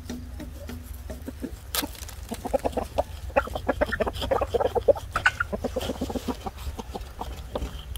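Several chickens clucking close by: a run of short, rapid clucks that grows busiest through the middle and thins out near the end.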